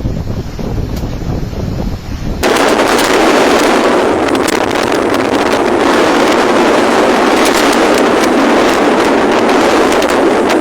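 Storm wind buffeting the microphone with a deep rumble. After about two and a half seconds it switches suddenly to a much louder, harsh, crackling hiss of wind-driven noise, which cuts off sharply at the end.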